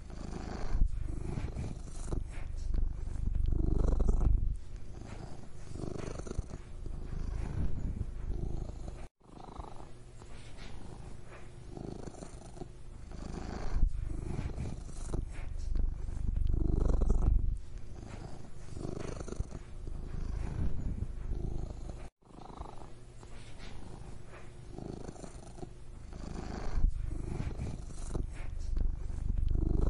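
Domestic cat purring, a steady low rumble that swells and fades every few seconds. It cuts out for an instant twice.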